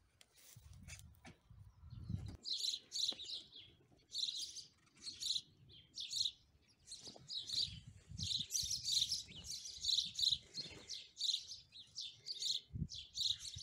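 Small songbirds chirping: quick runs of short, high chirps that start thinly and go on thickly from a couple of seconds in, over a low rumble at the very start.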